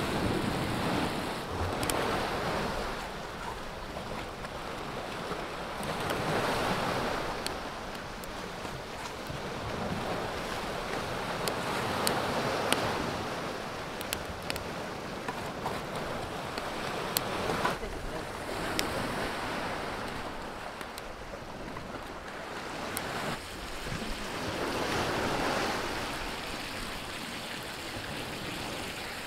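Sea waves washing against a rocky shore, swelling and fading every few seconds, with occasional short sharp clicks over them.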